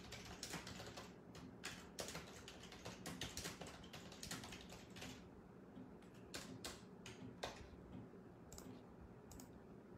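Faint typing on a computer keyboard: irregular key clicks, coming thickly for the first five seconds or so, then in a few scattered strokes.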